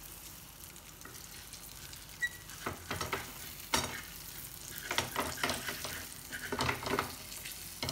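Rohu fish steak sizzling in shallow oil in a nonstick frying pan. From about two and a half seconds in, a steel spatula scrapes and taps against the pan several times as it is slid under the fish and the piece is lifted and turned.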